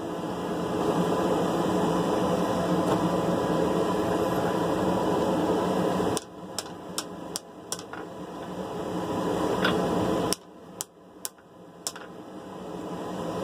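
Steady roar of a forge that drops out suddenly twice, each time with a short run of light hammer taps on steel, two or three a second, as the sword blade is straightened.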